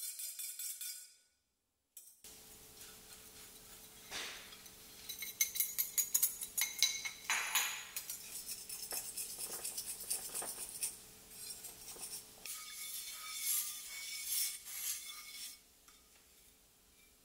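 Stainless-steel wire whisk clicking and clinking against a mixing bowl: quick whisking of frothed egg whites for about a second, then, after a short silence, irregular strokes as the flour is stirred into the financier batter. Near the end come lighter metal clinks of a spoon in a small frying pan.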